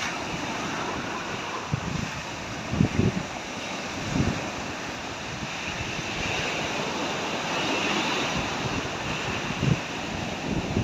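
Small waves breaking and washing up a sandy beach: a steady hiss of surf that swells around the middle as a wave runs up the sand. Wind gusts buffet the microphone a few times.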